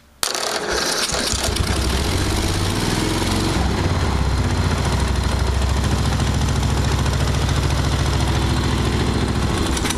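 Tecumseh lawn tractor engine firing up on a shot of ether, its first start on a newly fitted magneto. It catches abruptly a moment in, runs steadily for about nine seconds, and cuts off just before the end.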